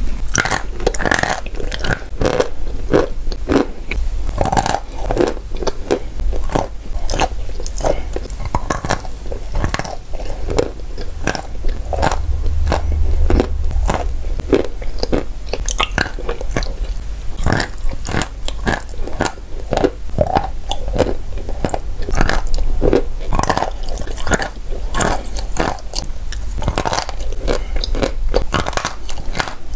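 Close-miked eating of a paste of blue Uzbek and Cambrian clay with white chalk mixed in: wet chewing and crunching, with dense, irregular mouth clicks throughout.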